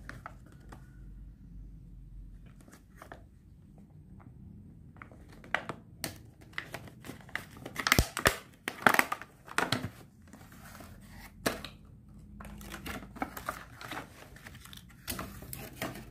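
Clear plastic packaging crackling and crinkling as it is pried apart by hand, with sharp snaps of the stiff plastic. It starts with a few light clicks and is busiest about halfway through.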